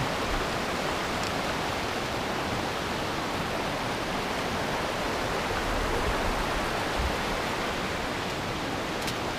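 Fast mountain river rushing over a stony bed: a steady, even rush of water.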